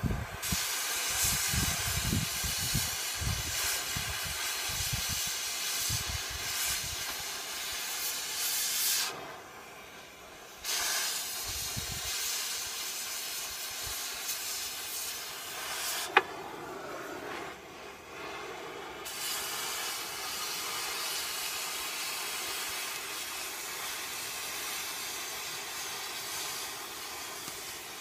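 Cutting torch hissing steadily as it cuts through steel. The hiss drops out briefly twice, about nine seconds in and again around sixteen seconds, with a sharp click at the second break.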